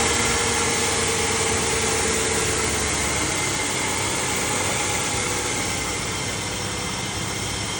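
A vehicle running: a steady mechanical noise with a faint high, even whine.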